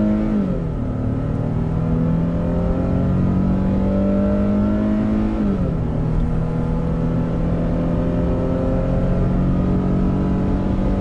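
2022 Nissan Frontier's 3.8-litre V6 at full throttle, pulling a 5,000-pound trailer, heard from inside the cab. The engine note climbs steadily and drops sharply twice, just after the start and again about five and a half seconds in, as the automatic transmission upshifts.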